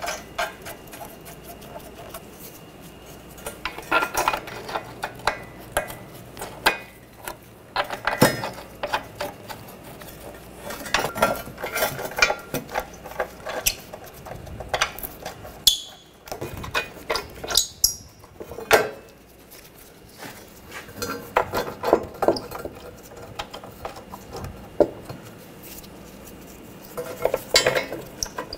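Metal hardware clinking and rattling: nuts and bolts being started by hand on a metal bracket under a car, in short irregular clicks and knocks.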